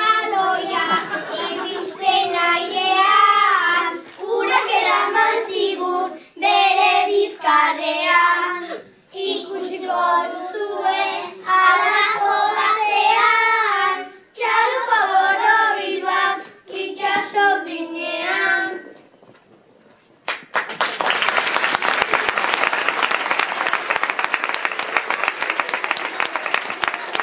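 A group of young children singing a song together in Basque, phrase by phrase with short breaths between. They stop about nineteen seconds in, and after a brief pause the audience applauds.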